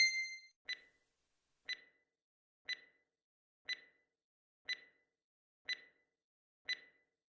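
Countdown-timer tick sound effect: a faint short tick once every second, seven in all. An electronic chime tone fades out at the very start.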